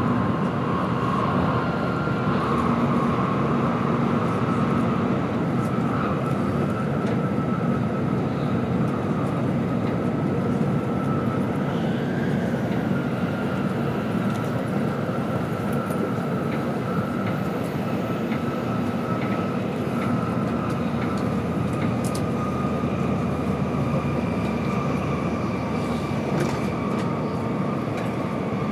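Interior running noise of an N700-series Tokaido Shinkansen at speed, heard inside the passenger car by the window: a steady rumble and rush with a thin, steady whine.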